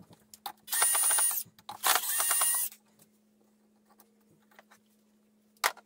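Small electric motor of a cordless power driver whirring in two short runs of under a second each, with a steady high whine. A sharp click follows near the end.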